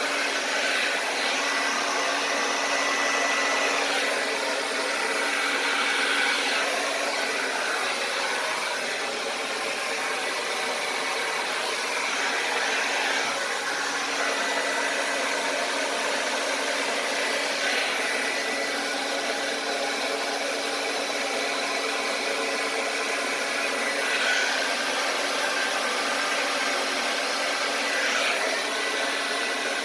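Handheld blow dryer running steadily, its airflow noise with a steady motor whine, shifting slightly in tone now and then.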